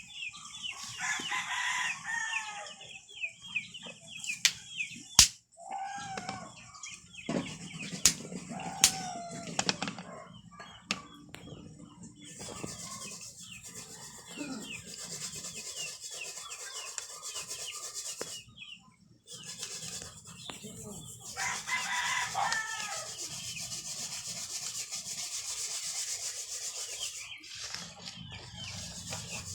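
Rooster crowing twice, about two seconds in and again about twenty-two seconds in, over a steady high hiss, with a few sharp clicks in between.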